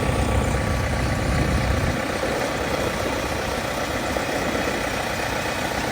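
Diesel engine of farm machinery in a rice field running steadily under heavy load, pulling a bogged-down harvester. Its deep rumble drops away about two seconds in.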